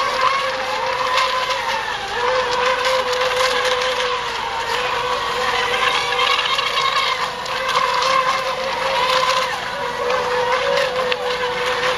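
Electric motors of several ECO Expert RC racing boats whining at speed, their pitch dipping and climbing again as the boats slow into the turns and accelerate out.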